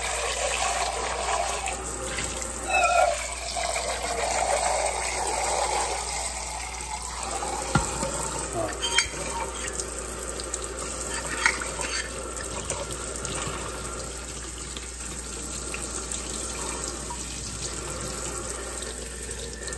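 Kitchen faucet running, its stream splashing into a titanium camping pot and the stainless-steel sink as the French press is rinsed out. A few sharp knocks come about a third and halfway in as the metal pot and filter are handled.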